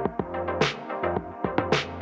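Electronic background music with a steady beat and a bright hit about once a second.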